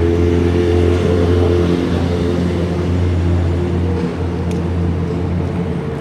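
A motor hums steadily, with a few pitched overtones over road and wind noise. The hum dips briefly about four seconds in.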